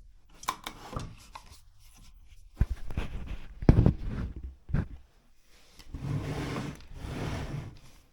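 Clicks and knocks from a router's parallel fence being handled and adjusted, with one loud knock a little before halfway. Near the end comes a couple of seconds of sliding, rubbing noise.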